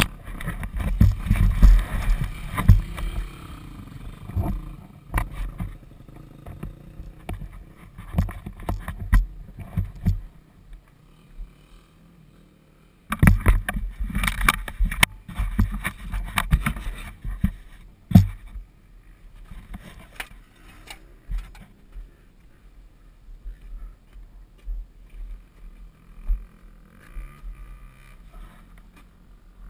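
Knocks and rumbles from a helmet-mounted action camera being handled and buffeted on the microphone, in two loud irregular bursts. Through the quieter second half a faint steady hum runs underneath, the Yamaha YZF250 dirt bike's four-stroke single idling.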